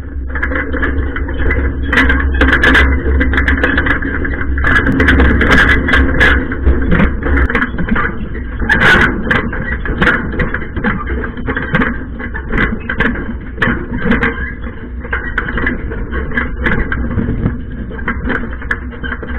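Farm machinery engine running steadily, with frequent rattles and knocks over the drone. The deepest part of the rumble drops away about seven seconds in.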